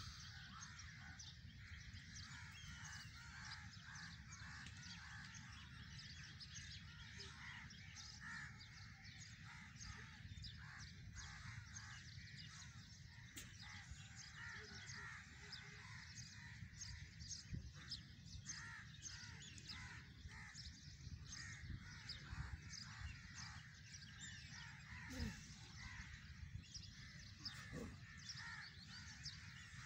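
Faint outdoor birdsong, many birds chirping and calling, over a low steady rumble, with a soft knock near the end.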